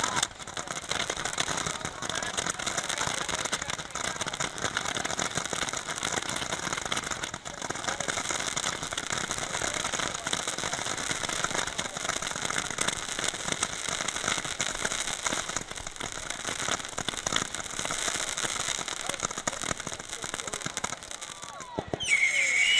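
Fireworks crackling steadily as a dense sizzle, with indistinct crowd chatter. Near the end a falling whistle is heard, then several rising whistles.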